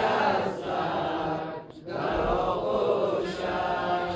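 Unaccompanied male chanting of a Persian-language noha, a Shia mourning lament for Ali Asghar, sung in long drawn-out phrases with a short break a little under two seconds in.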